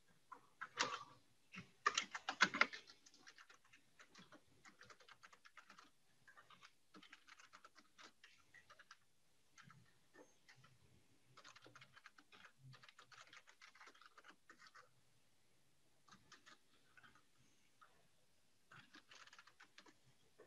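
Computer keyboard typing: quick runs of keystrokes broken by short pauses, the loudest flurry about two seconds in.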